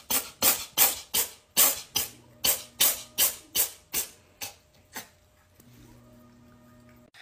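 Rhythmic shaker- or tambourine-like percussion, about three sharp hits a second, growing fainter and stopping about five seconds in. A faint low steady hum follows.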